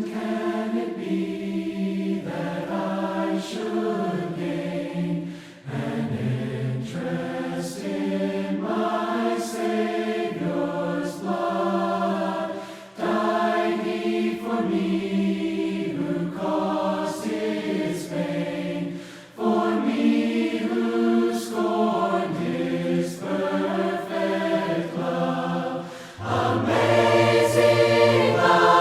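A choir singing a hymn a cappella in harmony, in phrases of a few seconds with short breaks for breath between them, swelling louder near the end.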